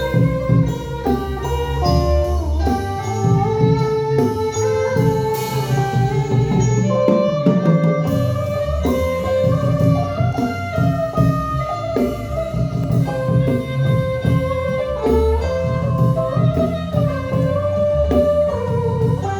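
Instrumental music: a melody of held notes over a bass line, with a plucked-string sound and light percussion.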